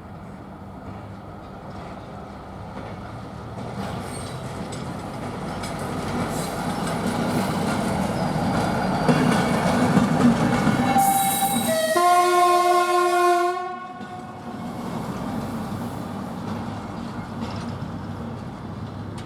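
MPT-4 track-maintenance railcar pulling away, its running noise growing louder. About eleven seconds in it sounds its horn for about two and a half seconds; the pitch steps up once partway. Steadier running follows after the horn.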